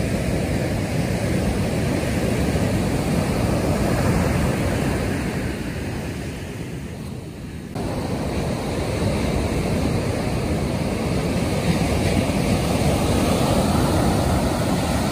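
Ocean surf breaking and washing up a sandy beach, with wind rumbling on the microphone. The sound dips and then jumps back suddenly about eight seconds in.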